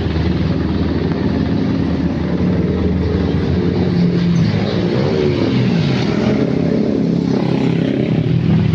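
Steady road traffic: the engines of several passing vehicles, motorcycles among them, with one engine note sliding in pitch as it goes by about five seconds in.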